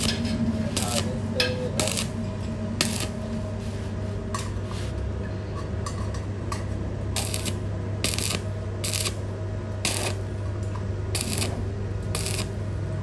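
Steady low electrical hum under short, sharp metallic clicks and scrapes at irregular intervals, about one a second.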